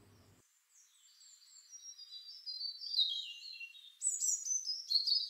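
Small birds chirping in quick, high-pitched notes, becoming louder and busier about halfway through.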